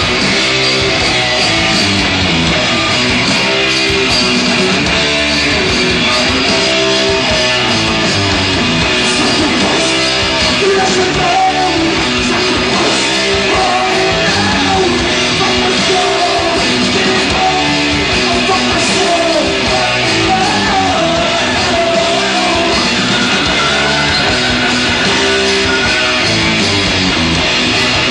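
Heavy metal band playing live, with loud distorted electric guitars driving a steady riff, captured on an old club concert tape.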